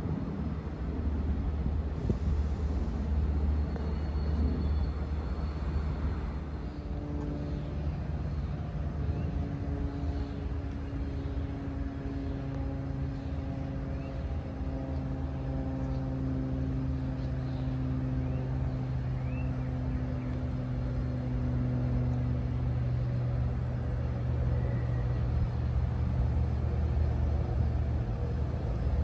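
Diesel locomotive engine rumbling steadily. A droning tone comes in about seven seconds in and slowly drifts lower, leaving a low hum under the rumble.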